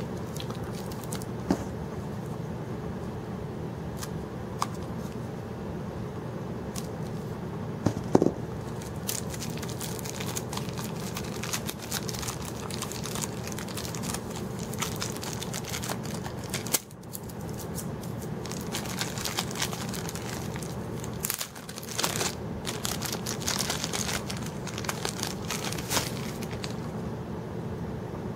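Packaging being unwrapped by hand: crinkling and tearing, busiest in the second half, with scattered clicks and knocks as the sharpening stones are handled, over a steady background hum.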